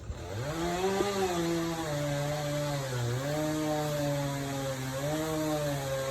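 Chainsaw engine revving up in the first second, then running at high speed, its pitch dipping briefly twice.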